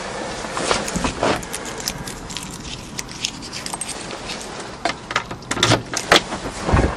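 Irregular clicks, rattles and knocks of someone handling things inside an old dump truck's cab, coming thicker in the last couple of seconds, with a dull thump near the end.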